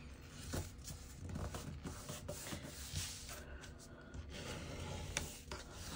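Kraft cardstock being folded and creased by hand: paper rustling and rubbing, with a few short, sharp crackles as the fold is pressed down.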